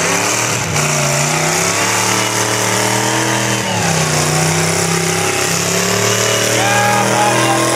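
1952 Farmall Super M tractor with a transplanted 350 Chevy small-block V8 running hard while pulling a weight sled. Its engine note dips briefly under the load about four seconds in, then climbs back and holds.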